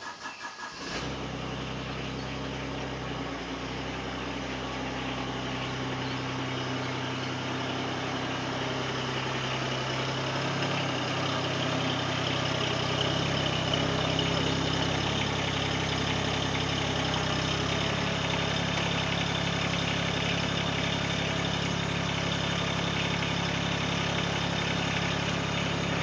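Mahindra eMax 20S compact tractor's three-cylinder diesel engine starting about a second in, then running steadily as the tractor is driven out and left running.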